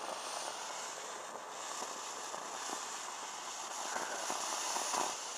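A firework burning on the ground with a steady hiss and a few faint crackles.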